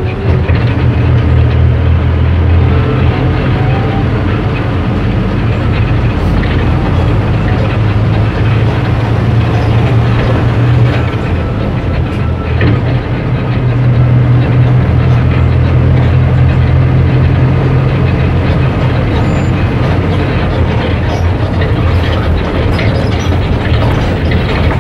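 Steady engine drone and road rumble inside a moving bus. The low engine note swells and eases a few times, with small rattles mixed in.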